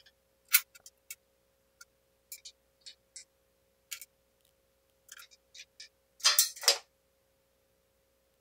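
Metal clicks and taps from the locking pin and pivot bracket of a Central Machinery 4x6 metal-cutting band saw as the arm is swung and tried in its lock positions, with a longer clatter about six seconds in.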